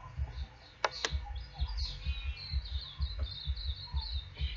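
Small songbird chirping, with a quick run of repeated chirps in the second half, over a low irregular rumble of wind on the microphone; two sharp clicks about a second in.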